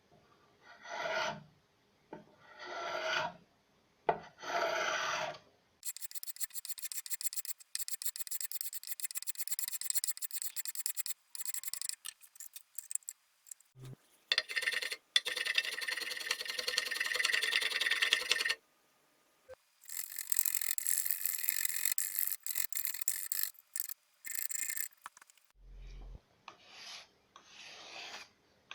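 Wood being rasped by hand: three separate scraping strokes, then long runs of fast back-and-forth scraping, and a few single strokes again near the end.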